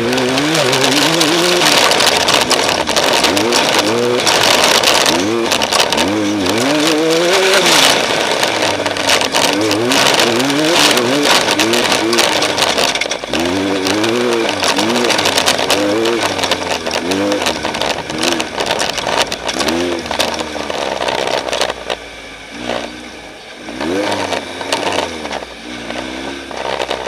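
Off-road race vehicle's engine revving up and dropping again and again, its pitch rising and falling about once a second over loud rattling and wind noise. Near the end it eases off and gets quieter.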